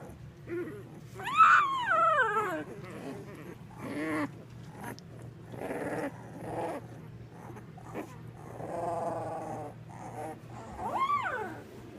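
One-week-old Labrador Retriever puppies whimpering and squealing, a string of high, wavering cries that rise and fall in pitch. The loudest are two sharp squeals, about one and a half seconds in and again near the end.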